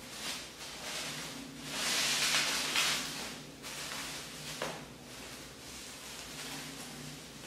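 Bubble wrap crinkling and rustling as it is handled and pulled off a wrapped object, loudest about two to three seconds in, with a single short click a little past the middle.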